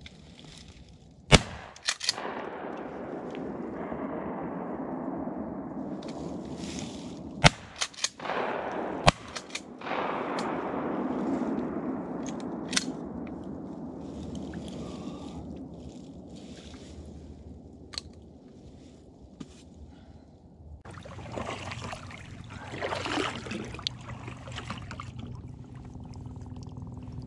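Shotgun shots at passing ducks: a pair of sharp blasts about a second in, then another quick group around seven to nine seconds in, each followed by a long echo rolling off across the lake.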